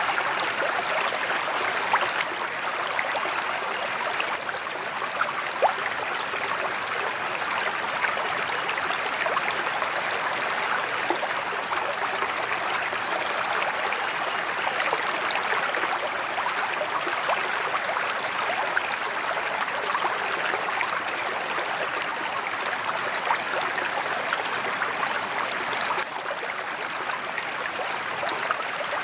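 Steady splashing of a sheet waterfall pouring from a wall spout into a koi pond, with a few small splashes standing out now and then.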